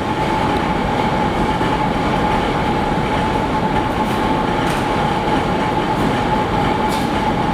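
Loud, steady machinery noise with a constant high whine running through it.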